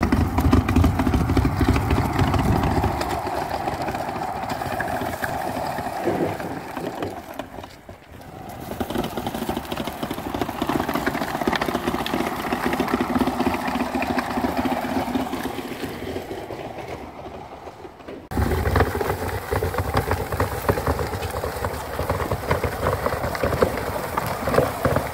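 Eureka Picobello 151 fully mechanical push sweeper rolling over concrete paving stones, its wheel-driven brushes spinning and sweeping debris with a dense, rapid clatter and a steady whir. The noise sags briefly about eight seconds in and jumps back louder about eighteen seconds in.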